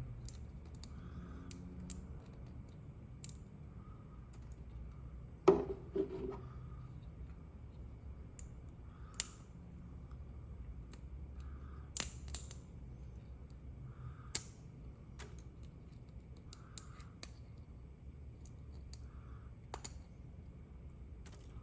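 Irregular sharp clicks and taps a second or two apart, with one louder knock about five and a half seconds in, over a low steady hum.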